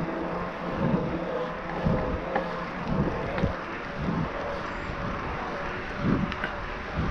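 Wind buffeting the microphone of a GoPro on a moving e-mountain bike, in low surges about once a second, over a faint steady whine from the bike's Bosch Performance Line drive unit.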